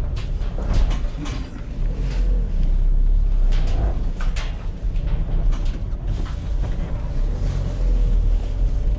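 A van driving, heard from inside the cab: a steady low engine and road rumble with scattered short clicks and rattles.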